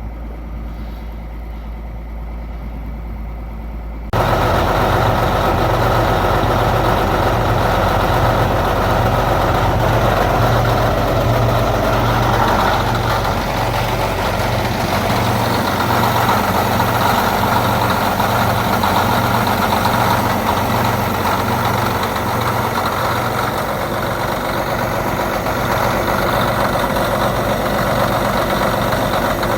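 Caterpillar D8K bulldozer's diesel engine running just after a cold start on ether. A lower steady engine hum for the first few seconds, then about four seconds in the sound jumps suddenly to a much louder, fuller engine note that stays steady.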